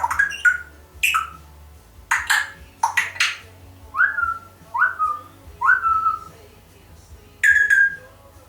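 African grey parrot whistling and squawking. Two harsh squawks come about two seconds in, then three short whistles in a row, each sliding sharply up and then holding one note, and one more call near the end.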